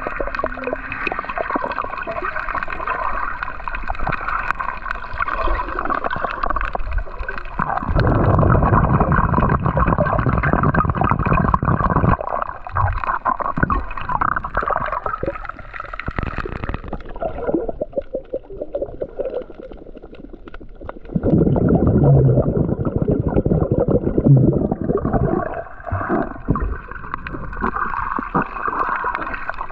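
Water gurgling and sloshing as heard through a submerged camera, muffled, with two louder surges and a steady hum under it that drops out for a few seconds past the middle.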